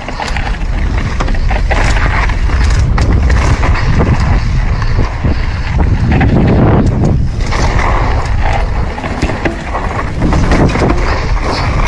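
Bicycle riding fast over rough off-road ground: loud wind buffeting on the microphone with the frame and parts rattling and knocking over bumps.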